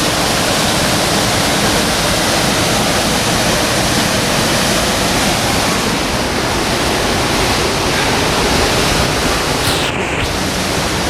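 Tall waterfall, water falling and splashing in a loud, steady rush.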